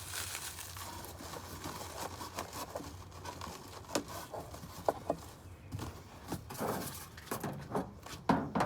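Bubble wrap rustling and crinkling as it is handled and wrapped around a machine, with scattered light clicks and knocks.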